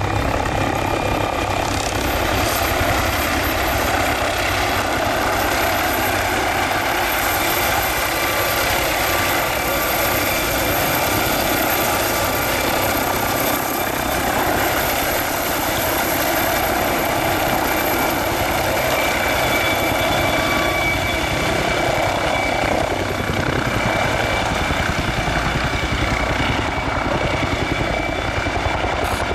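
MD Helicopters MD902 Explorer, a twin-turboshaft NOTAR helicopter, running at close range near the ground. A steady turbine whine sits over the fast beat of the main rotor.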